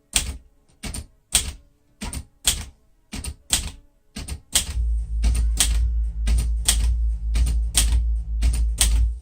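Underwood 315 manual typewriter typing one key at a time, as numbers and fractions are typed: sharp type-bar strikes at about two to three a second, unevenly spaced. From about halfway in, a steady low hum runs under the strikes.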